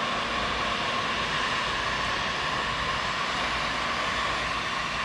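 Electric heat gun running steadily, its fan blowing hot air with a steady whine.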